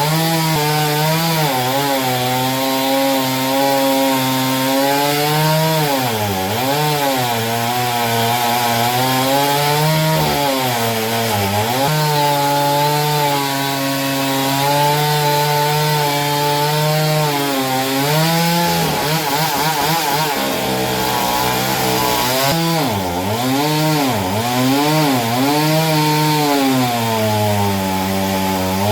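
Chainsaw running at high revs while cutting through a wooden log; its engine pitch sags several times as the chain bogs down in the cut, then climbs back.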